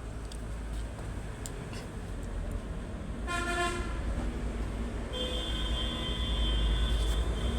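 Liebherr LTM 1120 mobile crane running, with a steady low rumble that grows louder toward the end. A short horn-like tone sounds about three seconds in, and a high steady whine comes in about five seconds in and stops just before the end.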